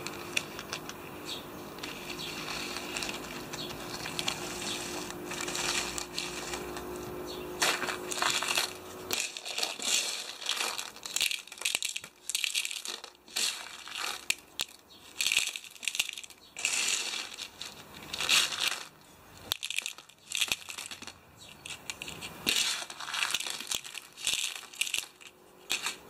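Small coloured gravel rattling and crunching as it is scooped with a plastic toy shovel and pushed around by plastic toy trucks, in a string of short, irregular rattles from about eight seconds in. A faint steady hum lies under the quieter first part.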